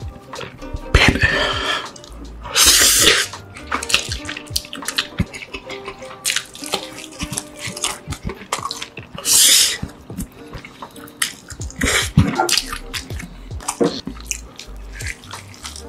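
Close-miked eating of a whole roast chicken: wet chewing and lip-smacking with many small clicks, and the meat being torn apart by hand, with a few louder rasping rushes of noise, about a second in, near three seconds and near nine seconds.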